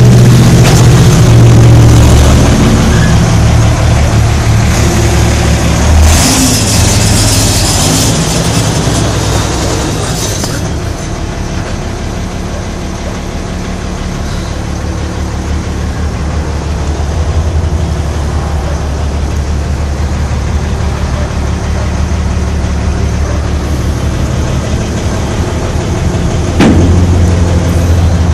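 Diesel engine of a 1991 International 4900 dump truck idling with a steady low hum. A burst of hiss comes about six seconds in and lasts a couple of seconds, and near the end a sharp click is followed by a louder hum.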